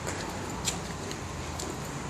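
Steady low background hum of distant traffic, with a few faint short high ticks, the clearest a little under a second in.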